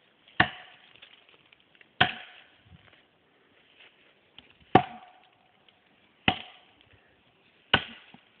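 An axe chopping into a tree trunk: five hard strikes about one and a half seconds apart, each a sharp crack with a short ring after it.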